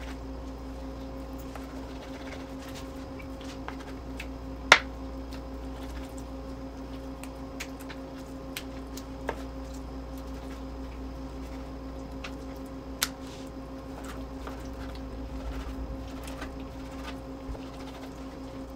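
Kitchen knife slicing raw chicken breast on a cutting board: light ticks and taps of the blade on the board, with a sharp knock about five seconds in and two more around nine and thirteen seconds. A steady low hum runs underneath.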